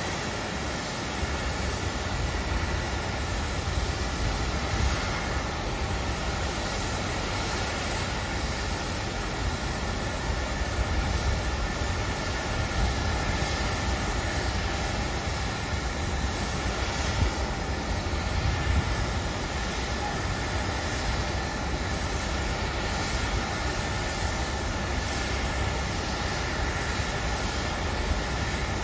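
Steady jet noise from a parked Embraer 170 regional jet at the gate: a low rumble with a faint steady high whine.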